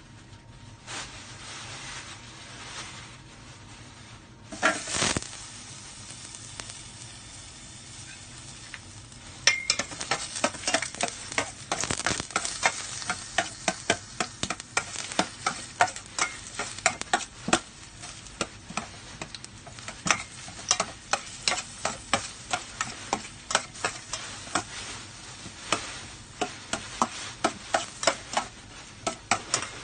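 Garlic sizzling in hot oil in a stainless steel pot, with a short loud burst about five seconds in. From about ten seconds in, a utensil stirs it, clicking and scraping against the pot many times a second.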